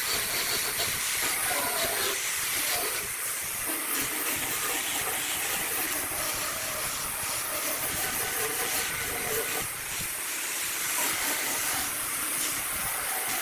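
Wood lathe running, with a steady hiss of wood being worked off the spinning redwood workpiece.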